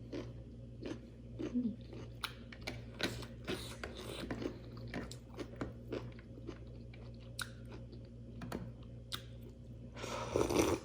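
Close-miked chewing and crunching of food, with many sharp crisp bites, and a louder burst of noise near the end.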